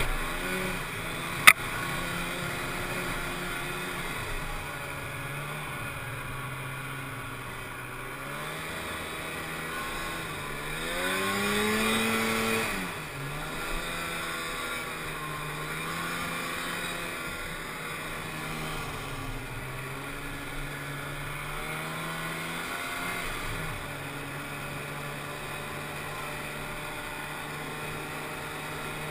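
Polaris Indy 340 snowmobile's two-stroke engine running under way at a fairly steady pitch, revving up and dropping back once around the middle. A single sharp knock about a second and a half in.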